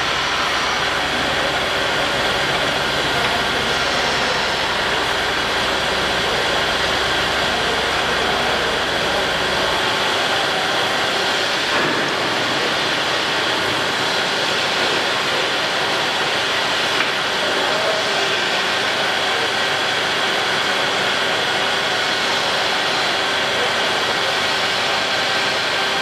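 Steady machinery noise: a constant mechanical hum with several fixed tones over a broad noise, its deepest rumble dropping away about ten seconds in.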